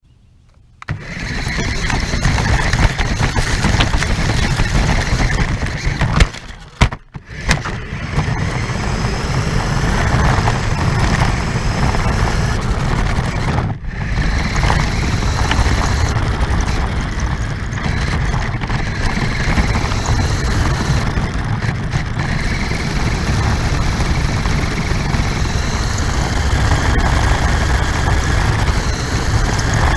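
Radio-controlled car driving with the camera riding on it: a steady motor whine over loud rumble and rattle. It starts about a second in and cuts out briefly twice, around six to seven seconds in and again near fourteen seconds.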